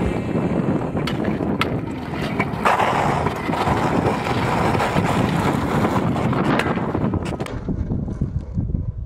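Stunt scooter's hard wheels rolling over rough, cracked asphalt, with a few sharp clacks and wind on the microphone. The rolling noise thins out near the end as the scooter moves away.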